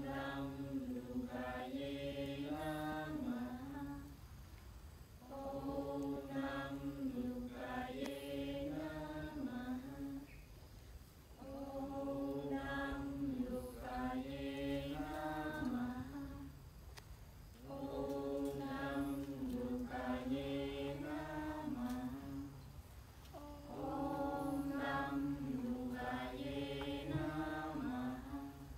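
A group of voices chanting one short melodic phrase in unison, repeated five times with a brief pause between each.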